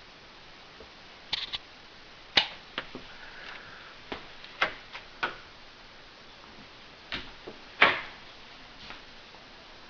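Scattered sharp clicks and taps, about a dozen at irregular spacing, some in quick pairs, over a faint steady room background; one of the loudest comes just before the end.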